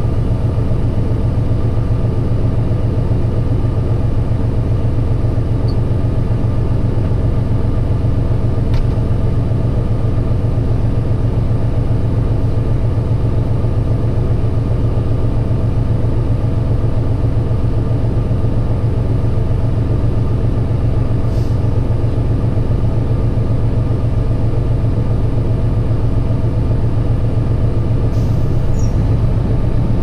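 Truck engine idling steadily, a low even rumble heard from inside the cab, with a few faint clicks.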